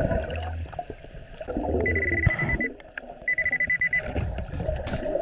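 Nokta Makro PulseDive underwater metal detector beeping: a high tone pulsing rapidly, in two short bursts about two and three seconds in, signalling a metal target under the sand.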